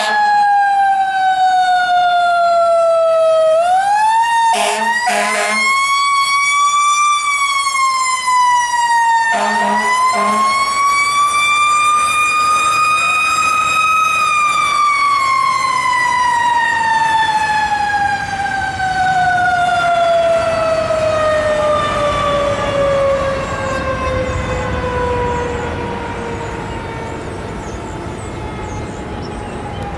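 Fire engine siren winding: it falls, winds back up to a peak, then slowly winds down and fades as the truck moves away. Short horn blasts cut in twice near the start.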